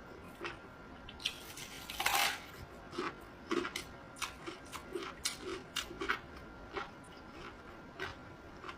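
A person chewing food close to the microphone: short wet mouth clicks and soft chewing sounds, with a louder noisy bite about two seconds in, then chewing at about two a second.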